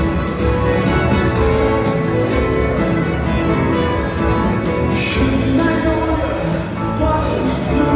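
Rock band and full symphony orchestra playing together live, a steady full-band sound with strong bass.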